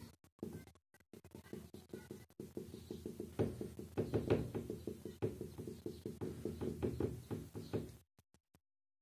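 Marker tip tapping on a whiteboard, a quick run of light taps as dots are struck onto the board one after another, stopping near the end.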